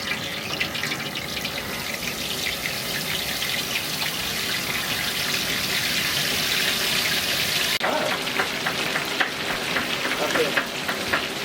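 Food frying in a pan of hot oil: a steady sizzle full of fine crackles. The sound changes abruptly about two-thirds of the way through and turns more crackly.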